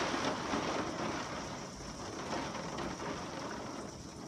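Heavy rain pouring down and streaming off the edge of a tiled roof, a steady hiss that slowly eases in level.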